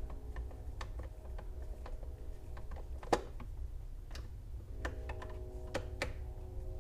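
Light, scattered clicks and taps of a screwdriver and plastic steering-column trim being handled and fitted back together, with one sharper click about three seconds in and a run of clicks near the end, over a low steady hum.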